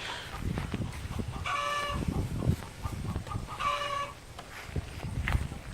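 Chickens calling, with two drawn-out hen squawks about a second and a half and about three and a half seconds in, over low irregular thumps and rustling.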